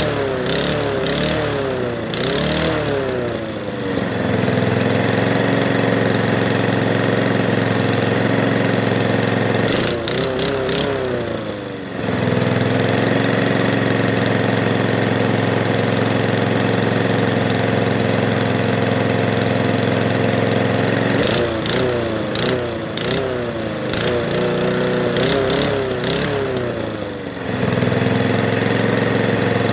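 Hyundai petrol walk-behind lawnmower engine running, mostly at a steady speed, with its revs rising and falling in quick waves at the start, again about ten seconds in, and for several seconds past twenty seconds in.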